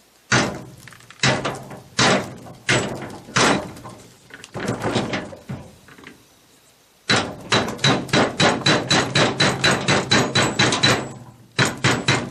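Hammer blows on the steel parts of a 1958 GM three-speed transmission, beating a part out of the case, each strike ringing metallically. About seven spaced blows come first, then after a pause a fast run of about four blows a second, a brief break, and more fast blows near the end.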